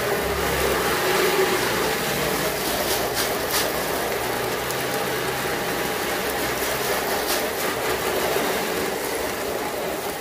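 Garden-hose spray nozzle spraying water onto the underside of a car hood, a steady hiss of spray and water splashing on painted metal and plastic sheeting.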